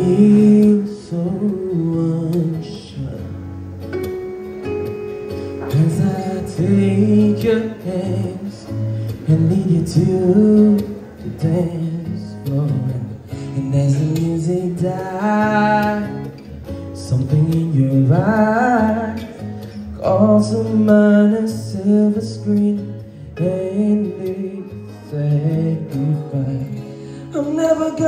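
A man singing into a microphone while accompanying himself on a Yamaha electronic keyboard, playing held chords under a wavering vocal line.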